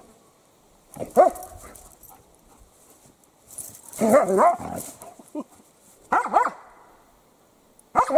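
Young German shepherd barking at a billy goat in short bursts: one bark about a second in, a longer run of barks around four seconds, and more barks around six seconds and again at the end.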